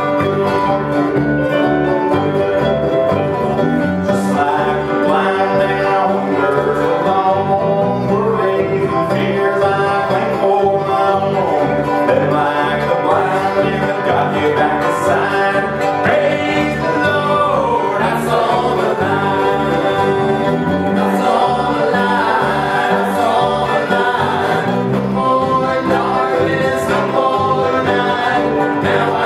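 Live bluegrass-style gospel music: banjo picking over electric bass guitar, with singing.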